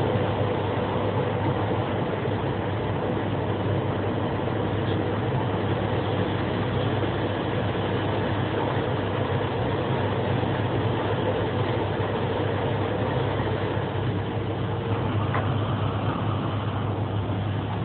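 Steady running noise of an SBB electric train, heard from the driver's cab, with a faint steady whine that fades out a few seconds before the end.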